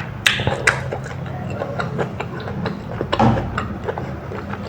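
Close-miked chewing and wet mouth clicks of someone eating rice, with a fuller bite or smack about three seconds in, over a steady low hum.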